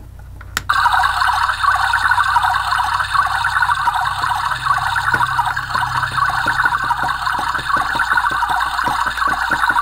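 Toy rice cooker's electronic bubbling, boiling sound effect from its small built-in speaker, starting with a click about half a second in and then running steadily.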